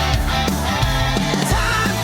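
Rock music with a steady beat and a bending melodic line near the end.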